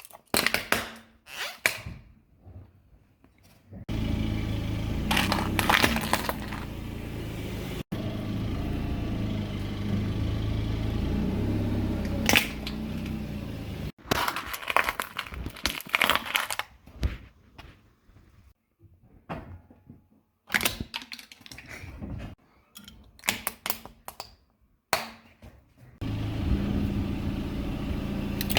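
Objects cracking and crunching as they are crushed under a car's tyres, in a series of sharp cracks. Through two stretches a steady low rumble of the car rolling runs under the crunching.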